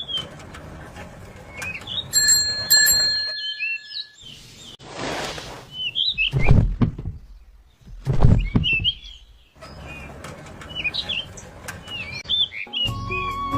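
Birds chirping with short repeated calls, interrupted about four seconds in by a burst of hiss and then by two deep, loud thuds a couple of seconds apart.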